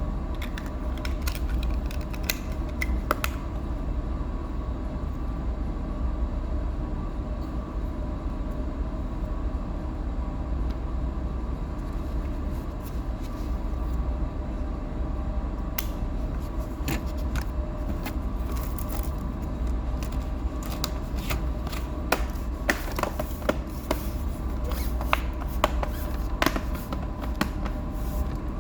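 Small clicks, taps and scrapes of hands working on a laptop's case and parts, over a steady low background hum. A few clicks come near the start, and they come thick and fast from about halfway through.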